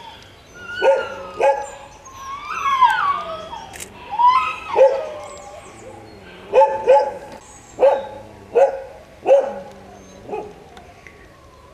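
Dogs in shelter kennels barking in short repeated barks, with one longer whining cry that rises and then falls about two and a half seconds in.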